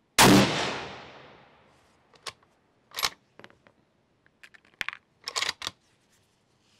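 A single shot from a Sabatti Tactical EVO bolt-action rifle in 6.5 Creedmoor fitted with a muzzle brake: sharp and loud, with a ringing tail that fades over about a second and a half. After it comes a run of light metallic clicks and clatters as the rifle is handled and a cartridge is picked from the box.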